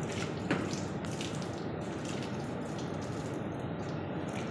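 Running rubber conveyor belt passing over its idler rollers: a steady rushing noise with a few short clicks, the sharpest about half a second in.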